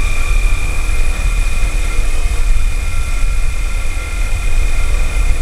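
T-motor U8 Pro 100KV brushless outrunner motor spinning a large propeller steadily at about two kilograms of thrust, drawing around 120 watts. A steady high whine sits over heavy low buffeting from the propeller's airflow.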